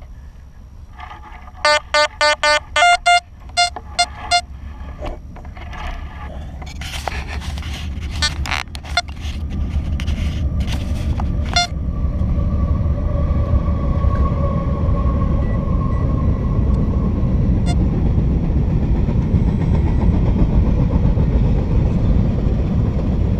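XP Deus metal detector giving a quick run of about eight pitched beeps over a medium-tone target, which turns out to be a cut Chinese coin. Then a shovel scrapes and knocks into dry dirt as the target is dug. After that a steady low rumble builds and dominates.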